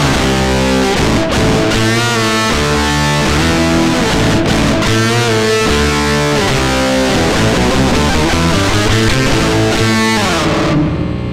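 Loud music led by distorted electric guitar in a heavy rock style, with bending notes. Near the end the playing stops and a low chord rings on.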